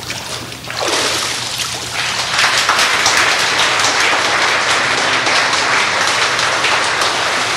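Water splashing in a baptismal pool as the person is raised from the immersion, then a congregation applauding. The applause starts about a second in and swells to full strength within another second.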